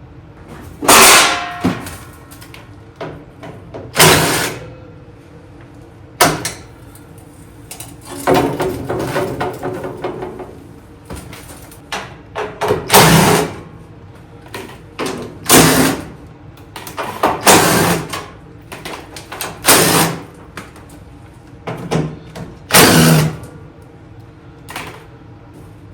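Sheet-metal covers of a portable welder being handled: a string of about ten sharp clanks at uneven intervals, with a longer rattle about eight seconds in.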